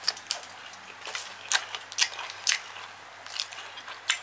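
A man chewing a mouthful of food close to the microphone: short, irregular mouth clicks and smacks, roughly two a second.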